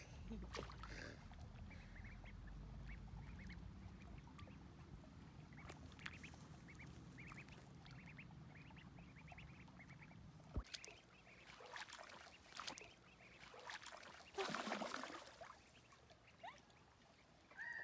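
Ducklings peeping faintly in short, repeated calls over a low steady rumble. After the rumble drops away a little past halfway, a few more peeps and a brief rush of splashing water follow.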